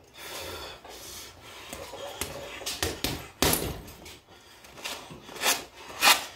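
Boxing gloves thudding into a hanging RDX teardrop punch bag with hook punches: a few lighter hits, a sharp loudest thud about three and a half seconds in, and two more close together near the end.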